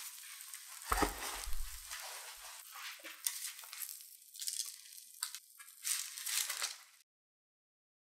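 A metal baking tray is set down with a low thump about a second in, followed by crinkling and rustling of baking parchment paper with several sharp crackles, stopping about seven seconds in.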